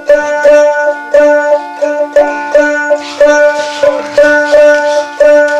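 Background music: a plucked string instrument repeating a short melody of quick notes over a steady low note, with a hissing shimmer joining about halfway through.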